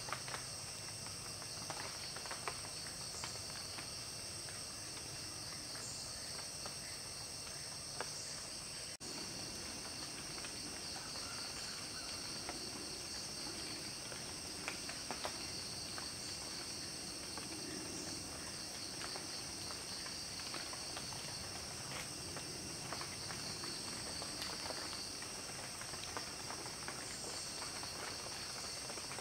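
Forest insects keep up a steady, high-pitched chirring chorus, with scattered faint clicks.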